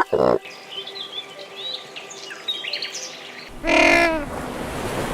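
Small birds chirping faintly for about three seconds after the end of a loud animal call, then a loud, wavering bleat like a goat's or sheep's about four seconds in.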